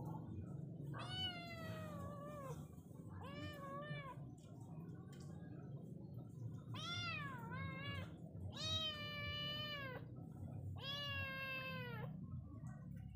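Kitten meowing repeatedly: about six high-pitched mews, several drawn out for over a second, over a low background rumble.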